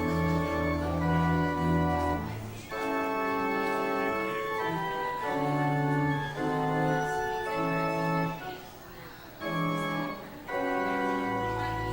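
Organ playing slow, sustained chords over a low bass, with short breaks between phrases about two and a half seconds in and again around nine seconds.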